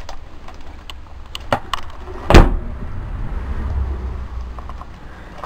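Scattered clicks and knocks of movement and handling, with one loud thump about two and a half seconds in, followed by a low rumble.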